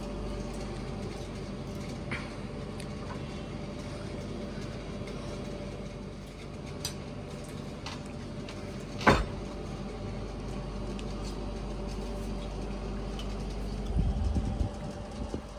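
Steady low hum of background noise, with one sharp click about nine seconds in and a little low rumbling near the end.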